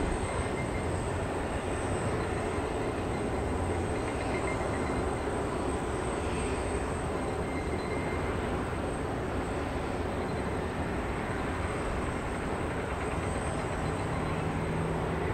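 Steady jet engine noise from an arriving Airbus A321-200 airliner, holding an even level throughout.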